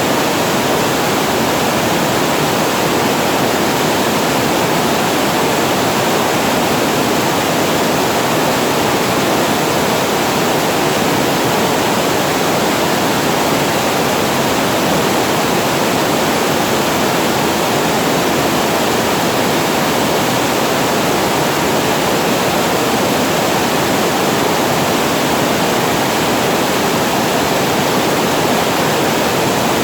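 Water spilling over a reservoir weir, a loud steady rush with no change.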